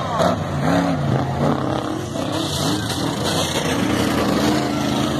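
Off-road race trucks driving past on a dirt course, their engines revving, with the engine pitch falling and rising again several times as they accelerate.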